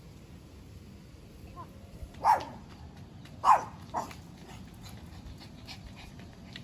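An animal giving three short calls that drop in pitch, starting about two seconds in, the middle one the loudest.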